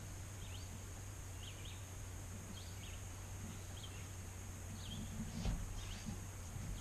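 Faint outdoor background with small birds chirping briefly now and then over a low steady hum. A soft thump comes about five and a half seconds in.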